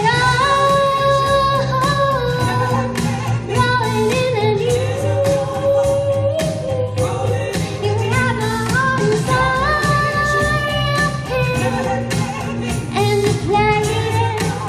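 A girl singing through a microphone over backing music with a steady beat, holding long notes that glide between pitches.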